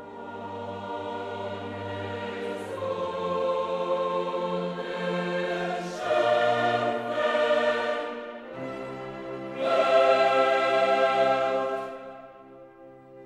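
Background music: a choir singing long held chords over orchestra, swelling twice and fading near the end.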